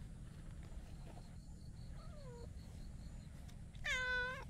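Domestic cat meowing: a faint short meow falling in pitch about two seconds in, then one loud, clear meow near the end.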